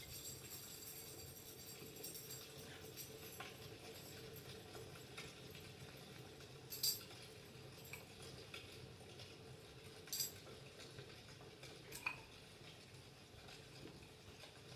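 Faint metallic jingling that dies away over the first couple of seconds, then quiet room tone broken by a few sharp clicks, the loudest about seven seconds in and two more near ten and twelve seconds.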